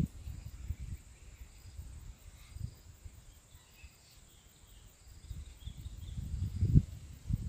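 A steady high insect drone with a few faint chirps, under irregular low rumbling that dies down in the middle and swells again near the end.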